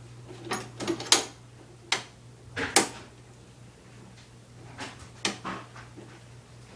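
Scattered clicks and knocks of lawnmower parts being handled and fitted during assembly, about eight in all, the loudest about a second in and just under three seconds in, over a steady low hum.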